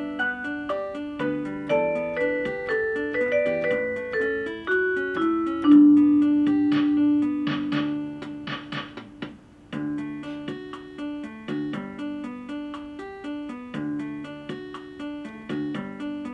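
Electronic keyboard playing in a piano voice: a melody over a flowing accompaniment of repeated broken-chord notes. About six seconds in, one low note is held for a couple of seconds while a few brushy percussion strikes sound over it. Then the running notes start again.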